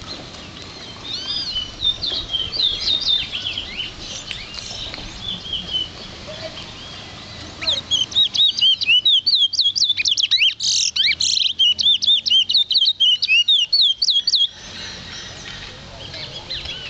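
Caged towa-towa finch singing. Scattered soft chirps come first. From about eight seconds in, a loud, fast song of quickly repeated high notes runs for about seven seconds, then stops.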